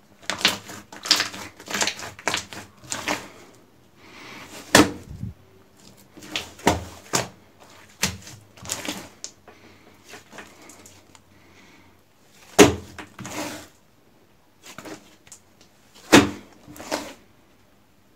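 Hands squeezing and folding a large mass of glossy slime: sticky squelches and sharp pops as air pockets burst. The pops come in a quick cluster at first, then more spaced out, with the strongest about 5, 12.5 and 16 seconds in.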